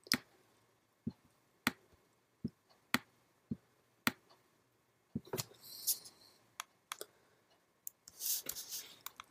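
Computer mouse clicking: single sharp clicks about every half to one second as 'Step Backward' is chosen again and again to undo edits, then a quick flurry of clicks and rattle near the end.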